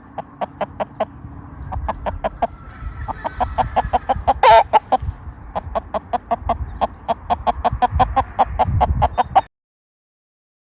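Gamefowl chickens clucking in quick repeated notes, several a second, with one louder call about four and a half seconds in. The sound cuts off abruptly about a second before the end.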